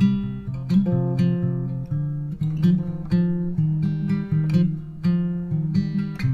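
Background music: acoustic guitar played in plucked and strummed chords with a steady rhythm.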